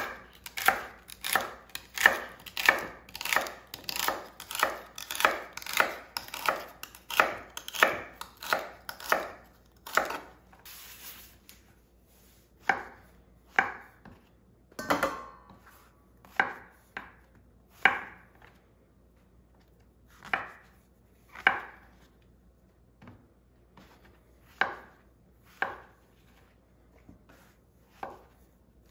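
Chef's knife chopping on a bamboo cutting board. For about the first ten seconds it makes a quick, even run of cuts, about two a second, through a green vegetable stalk. After a short pause come slower single cuts, roughly one a second, slicing brown mushrooms.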